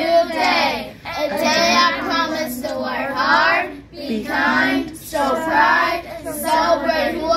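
A group of children chanting a pledge together in unison, in short phrases with brief pauses: 'Today is a new day. A day I promise to work hard, be kind, show pride, and celebrate who I am.'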